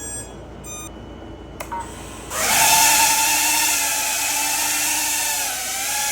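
Brushless motors of an FPV quadcopter spinning up together with a steady, high whine and a rush of air. It starts about two seconds in, holds for nearly four seconds, wavers slightly in pitch and stops just before the end.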